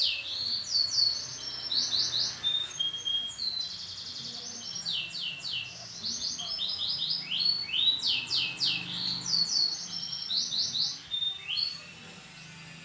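Canary singing: a long run of quick trilled phrases, high repeated sweeps and buzzy rolls, that stops about a second before the end.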